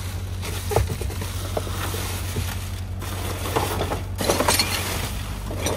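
Rummaging through the contents of a dumpster: scattered knocks and rustling, with a busier run of clattering a little past the middle, over a steady low hum.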